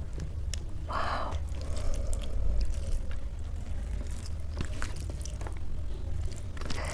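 Close-miked eating: chewing and mouth sounds with small clicks and scrapes of food on the plate, over a steady low hum.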